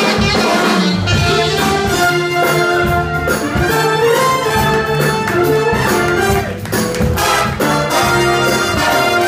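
Jazz big band playing a full ensemble passage: trumpets, trombones and saxophones together, with many parts moving at once.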